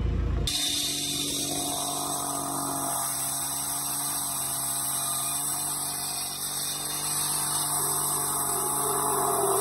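Hand-held disc cutter (cut-off saw) running steadily as its blade cuts a thin sliver off the edge of a precast concrete wall panel. It starts about half a second in.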